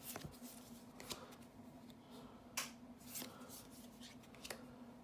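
Magic: The Gathering trading cards being flipped and slid through the hands one by one, giving short papery swishes and flicks roughly every second, over a faint steady hum.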